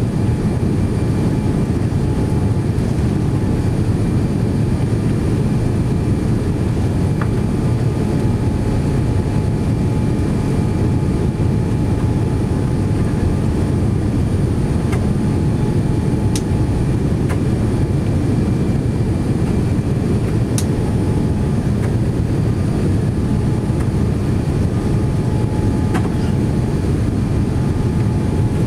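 Steady low rumble of a Boeing 787-9's engines and airflow, heard from inside the passenger cabin, with a faint steady whine over it and a few light clicks.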